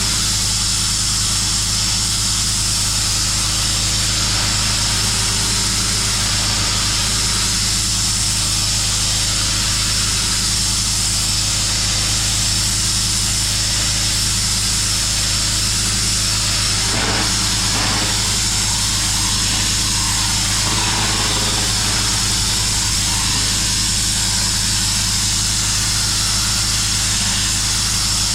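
Pressure washer running steadily: a constant engine hum under the loud hiss of the high-pressure water jet blasting dirt off concrete.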